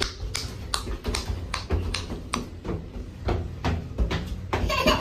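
Light irregular taps and knocks, about two or three a second, inside a small elevator car, over a steady low rumble.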